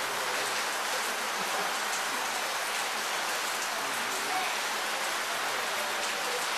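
A steady, even hiss like rain falling, with no singing or playing.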